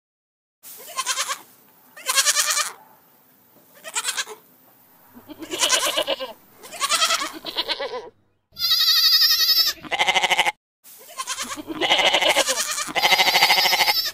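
Goats bleating over and over: about eight wavering bleats, some short and some drawn out for a second or more, with a few abrupt breaks between them.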